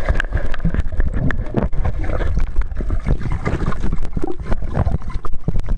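Water churning heard through a camera held underwater in a swimming pool: a loud, muffled rumble with many small clicks and knocks.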